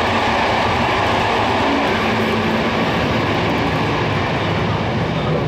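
Steady rolling noise of a vintage wooden passenger carriage running along the rails at speed, heard from inside the coach.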